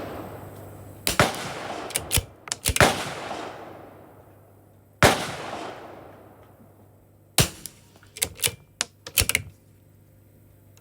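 Gunshots from .22 rimfire rifles at a range: several loud, sharp reports with a long echo tail, spaced a second or two apart, then a quick cluster of lighter cracks near the end.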